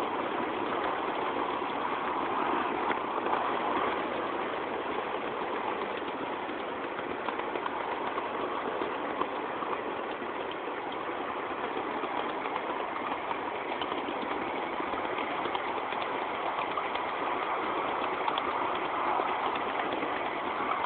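A small riding vehicle running steadily along 7.5-inch gauge miniature railway track, with an even mechanical running noise and no clear beat.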